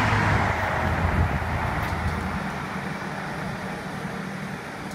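A passenger train running past on the line and pulling away, its rumble loudest at first and fading steadily as it recedes, with the low hum dropping away about halfway through.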